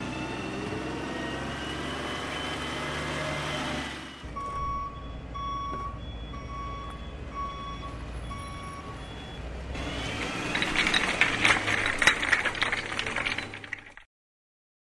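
Mining haul truck engine running with its pitch rising, then its reversing alarm beeping at a steady pace. A loud clatter of rocks tipping out of the dump body follows, stopping suddenly near the end.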